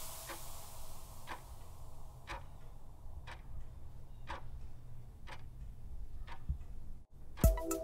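Quiz countdown-timer sound effect ticking about once a second, like a clock. Just before the end the ticking stops and music with a steady beat comes in.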